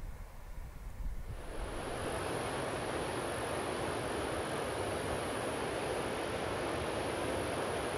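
Low, gusty wind rumble on the microphone, then, about a second and a half in, a steady rush of river rapids, whitewater pouring over rocks.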